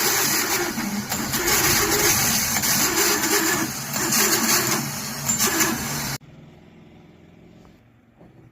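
A car's self-starter motor running with a loud, harsh noise for about six seconds, then cutting off suddenly; the noise is the starter's fault. A faint steady low hum follows.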